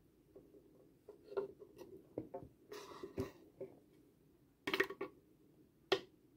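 Cubes of cheese being added by hand onto a salad of tuna, raisins and lettuce in a bowl: irregular soft taps and light clicks, with a quick cluster of them a little before the end and one last sharper tap.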